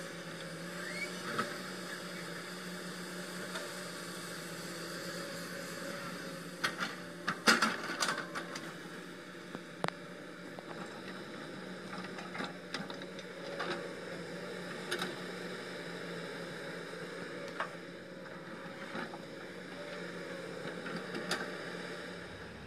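Diesel engines of hydraulic excavators at work, among them a Komatsu PC200, giving a steady drone. A quick cluster of knocks comes about seven to eight seconds in, with scattered single clanks later.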